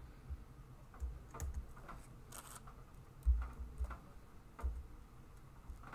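Scattered taps and clicks of a computer keyboard, with a few dull bumps, the loudest just past halfway.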